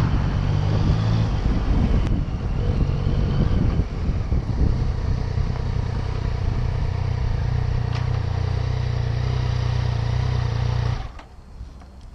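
Yamaha FZ-09's three-cylinder engine running as the motorcycle rolls slowly, then idling steadily, and cut off abruptly about eleven seconds in as the bike is switched off.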